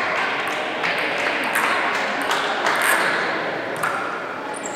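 Table tennis balls clicking in irregular, scattered strikes against bats and tables, over a steady murmur of voices.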